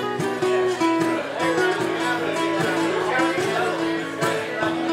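Acoustic guitar strummed and picked in a steady rhythm, with held chords ringing under the strokes.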